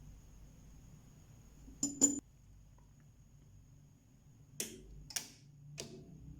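Micro pulse arc welder fusing stainless steel beads: five sharp snapping clicks, a quick pair about two seconds in and three more spread over the last two seconds, over the welder's faint steady high whine.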